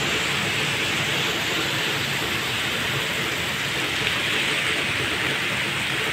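Heavy rain pouring steadily, an even hiss, with traffic driving along the flooded wet road below as a low rumble underneath.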